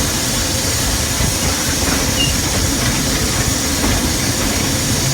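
Steam locomotive under way pulling a train of cars: a steady hiss of steam over a continuous low rumble.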